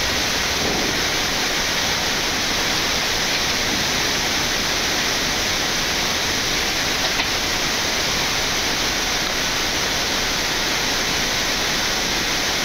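Steady rushing noise on the flight deck of a Boeing 787-9 climbing out after takeoff, with flaps still extended.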